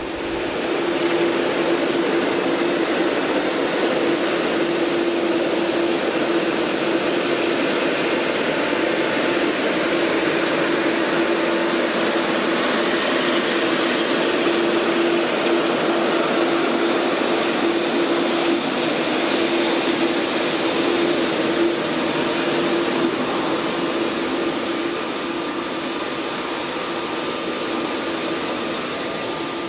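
Airliner jet engines running, a steady roar with a constant hum, easing off a little over the last few seconds.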